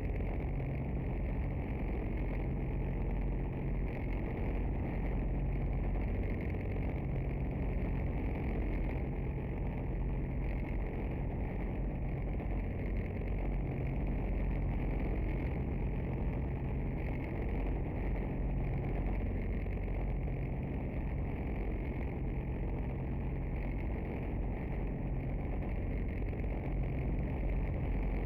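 Chevrolet Omega engine idling steadily at a constant, even pitch.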